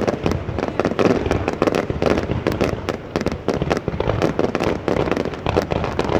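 Fireworks and firecrackers going off in a dense, continuous barrage of rapid bangs and crackles with no letup.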